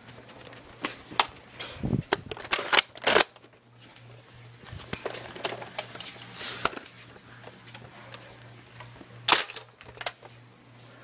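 Sharp clicks and knocks of Nerf foam-dart blasters being handled and fired. Several come in quick succession in the first few seconds and one loud one near the end, over a steady low hum.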